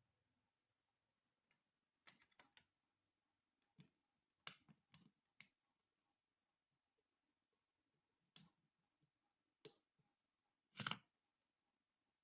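Quiet handling noises of a smartphone: about ten sharp clicks and taps at irregular spacing, the longest a brief rattle near the end, over a faint steady high whine.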